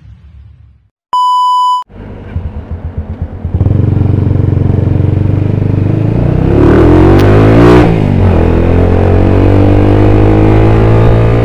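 A short electronic beep about a second in, then a motorcycle engine: a few uneven pulses, settling into a steady running note from about three and a half seconds in as the bike rides along. Around seven seconds in the engine's pitch rises and falls.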